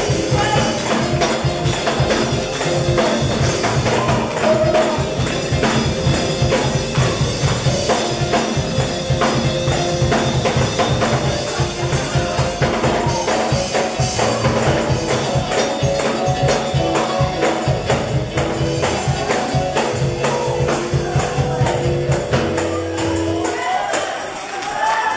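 Gospel praise music: a tambourine struck in a fast, steady rhythm over held chords, with some singing. The music stops about 23 seconds in and a voice takes over.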